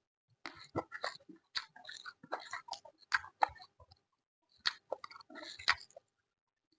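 Close-miked mouth sounds of a person eating: chewing with crunches and wet clicks in quick, irregular runs, pausing briefly about two-thirds of the way through.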